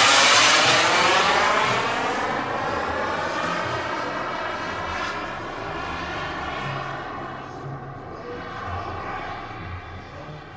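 Twin Lambert Kolibri jet turbines of a 1:6 scale Pilatus PC-24 RC model jet flying past. It is loudest right at the start as it passes overhead, then fades steadily as the plane flies away.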